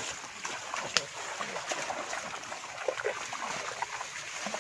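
Water sloshing and splashing around a person wading chest-deep and working a fishing net, with a sharp click about a second in.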